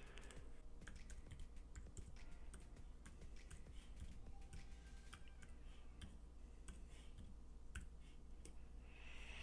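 Faint, irregular keystrokes on a computer keyboard as a command is typed, over a low steady hum.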